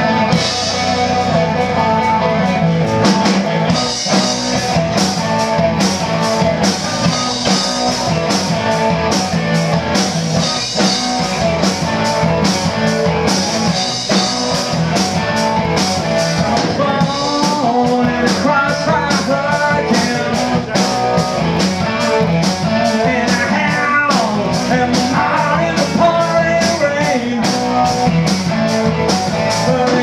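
Live rock band playing a cover: distorted electric guitars over a bass guitar line and a drum kit keeping a steady beat, with cymbal crashes recurring every few seconds.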